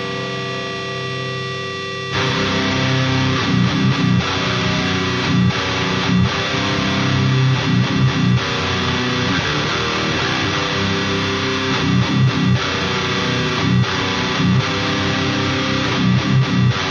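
Instrumental intro of a hardcore/metalcore album: a held, ringing tone, then about two seconds in an electric guitar comes in louder, playing a riff with recurring accents.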